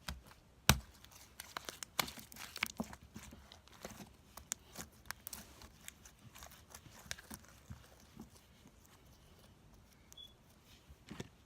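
Hands squishing and stretching slime, making a run of sticky pops, clicks and crackles, with the sharpest snap just under a second in; the pops thin out over the last few seconds.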